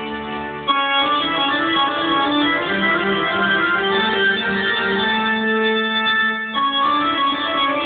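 Live organ music with sustained keyboard chords. A new chord comes in sharply just under a second in, notes move over a held chord, and the chord changes again about six and a half seconds in.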